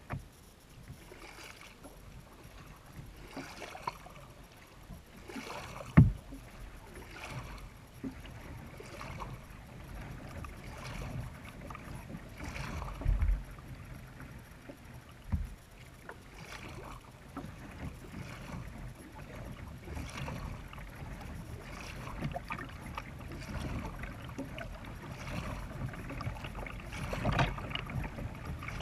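Double-bladed kayak paddle strokes: water splashing and dripping off the blades about once a second. A sharp knock comes about six seconds in, and two dull thumps come a little later.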